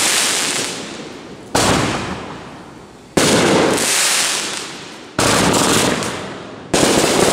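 Aerial fireworks bursting overhead one after another, four loud bangs about every one and a half to two seconds, each trailing off before the next.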